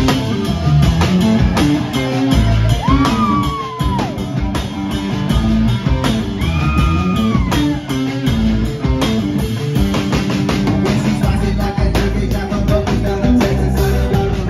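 Live rock band playing loud on electric guitars and a drum kit. Two long held notes bend up and then fall away, about three and six and a half seconds in.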